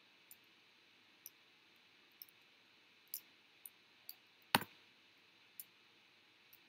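Light, irregular clicking, about nine small high-pitched clicks, with one sharper, louder click about four and a half seconds in, over faint room hiss.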